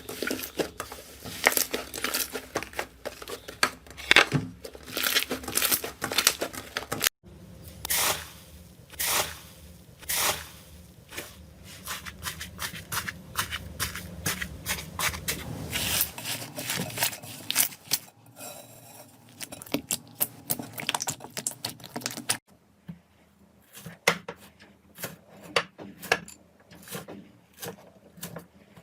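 Slime being handled, pressed and stretched, with dense, irregular sticky crackles and pops. The sound changes abruptly twice as one clip gives way to the next.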